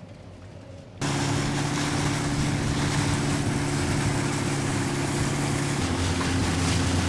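Engine of a wooden Mekong river boat running steadily under way, with the rush of water and wind over it; it starts abruptly about a second in, and its note drops a little about six seconds in.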